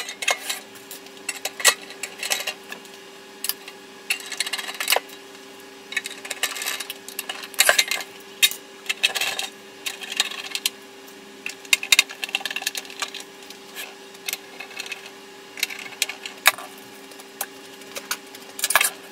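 Irregular clicks and knocks of a UPS's sheet-steel case being handled and closed back up after a battery swap, over a steady low hum.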